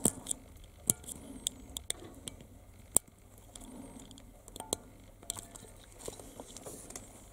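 A blade cutting and prying at the plastic base of an LED filament lamp, giving a scatter of small irregular clicks and snaps, the sharpest about one and three seconds in.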